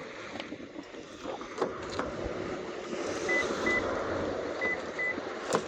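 Door locks of a 2010 Toyota Avalon being worked from a programmed flip remote: a few sharp clicks, a loud one near the end, and two pairs of short, high beeps in the second half.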